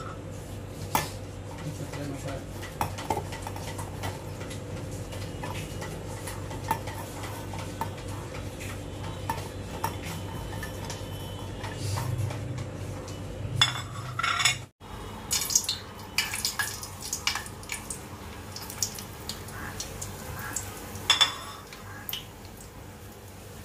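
Kitchen handling sounds: scattered clinks and knocks of ingredients and utensils against a steel grinder jar, a plate and a steel pot, over a steady low hum.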